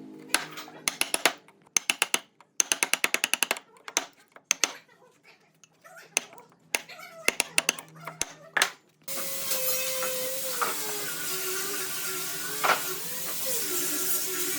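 Workshop tapping and clicking, some in quick rattling runs. About nine seconds in, an electric power tool starts running; its motor pitch dips and recovers as it works the wood.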